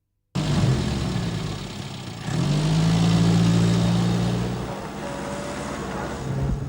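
Austin Mini's four-cylinder engine running. It cuts in abruptly just after the start, rises to a louder, steady higher-revving hum for a couple of seconds in the middle, then drops back to a lower run.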